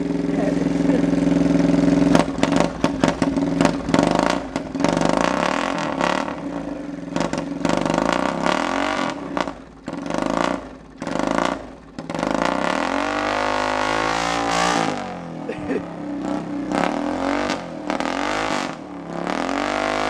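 Straight-piped 110cc Chinese quad's single-cylinder four-stroke engine revving under heavy load in thick mud. The revs rise and fall over and over and drop away briefly several times around the middle.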